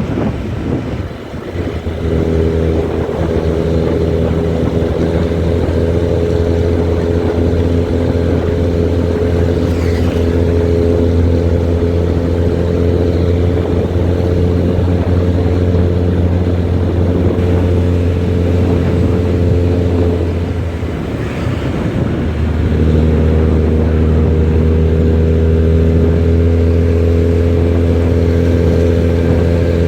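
Nissan-chassis bus's diesel engine pulling steadily, its exhaust giving a deep, even growling drone. The drone dips briefly about a second in and again around twenty-one seconds in, each time coming back a little lower and slowly climbing, as at a gear change.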